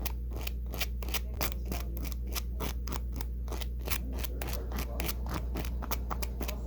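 A seam ripper's point picking and scraping through the hooks of a velcro strip to lift out trapped lint and dirt, giving rapid, irregular crisp clicks at about five a second over a steady low hum.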